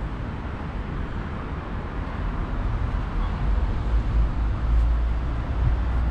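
Outdoor town ambience: wind rumbling on the microphone over a steady hiss of distant road traffic, the rumble growing stronger about halfway through.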